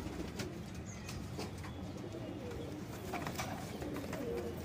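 Domestic fancy pigeons cooing in a loft: several soft, low coos, mostly in the second half, with a few faint clicks.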